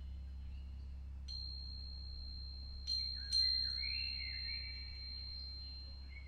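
Metal chimes struck and left ringing, with a few sharp strikes: one early on, then two close together about three seconds in, the second the loudest. A high ringing tone and a steady low hum carry on underneath.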